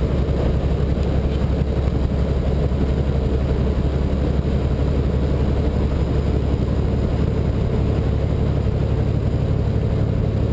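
Semi-truck's diesel engine running steadily at highway cruise, a constant low drone mixed with road and wind noise, heard from inside the cab.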